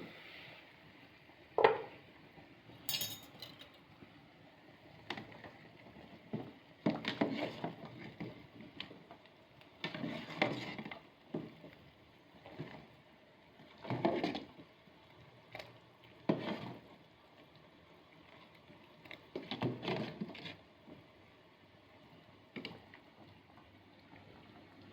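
Dishes and kitchen utensils being handled: irregular knocks, clinks and short bursts of clatter with pauses between, the sharpest knock about a second and a half in.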